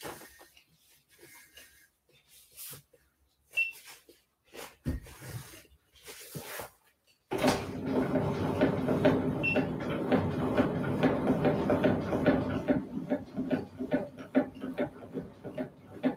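Scattered small knocks and rustles of handling, then about seven seconds in an electric standing desk's motor starts suddenly and runs with a steady hum as the desk is lowered, easing off near the end.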